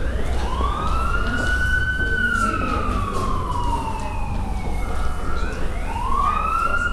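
Emergency vehicle siren wailing: its pitch rises, holds, slides slowly down over about three seconds, then rises again near the end.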